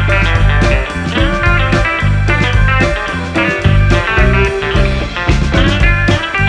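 Background music: blues-rock led by electric guitar, with bass and a steady drum beat.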